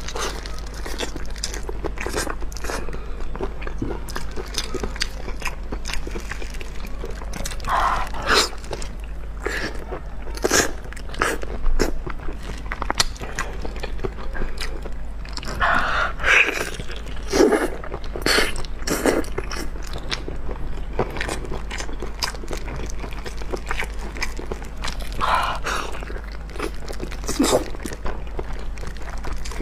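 Close-miked eating of braised pig's trotters: biting and chewing of the soft skin and meat, with irregular mouth clicks and smacks and a few louder bites. A steady low hum runs underneath.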